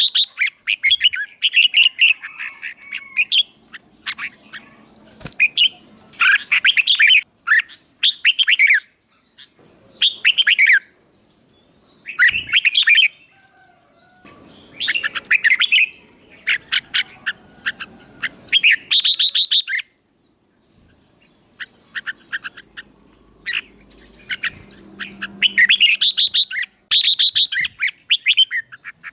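Songbirds singing in short, rapid, warbling phrases, one burst after another with brief pauses between them.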